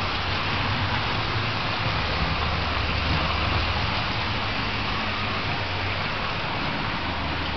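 Model train running along the track: a steady rushing rattle of wheels on rail over a low motor hum.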